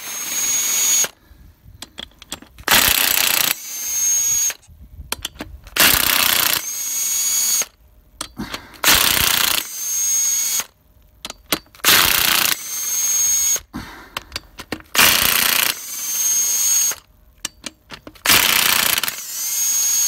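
Cordless impact wrench undoing the crankshaft bearing cap bolts on a Vauxhall 2.0 CDTI diesel engine block. About seven bursts of a second or two each, every one ending in a high whine, with short clicks in between.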